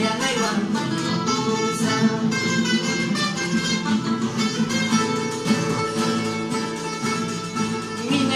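Acoustic guitars strumming and picking an instrumental passage of a carnaval song, between sung verses.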